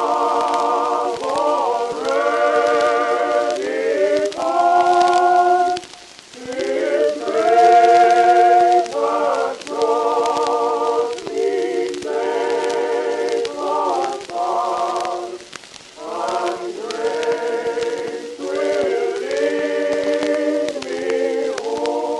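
A choir singing slow sustained chords with vibrato, in phrases broken by short pauses, over a faint steady crackle.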